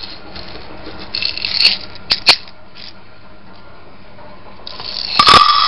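Dry popcorn kernels being scooped and poured into a popcorn machine, rattling against the scoop and the machine. There is a short rattle with two sharp clicks early on, then a longer, louder pour near the end.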